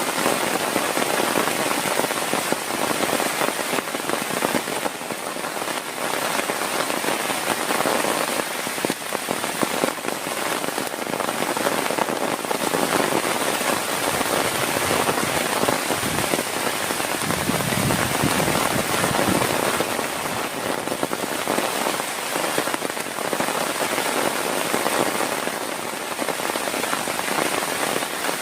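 Heavy rain pattering steadily and densely on a surface. A low rumble swells for a few seconds past the middle.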